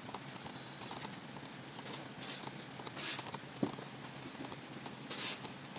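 A few short metallic scrapes and a sharp click from a tool working screws out of the e-bike hub motor's cover.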